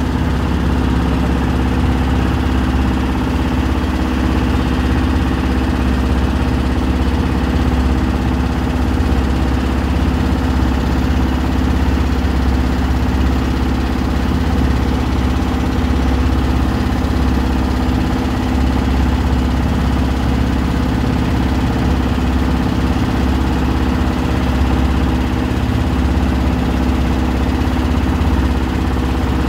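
Engine of a small motorized wooden river boat running steadily at cruising speed, a constant drone with water rushing along the hull.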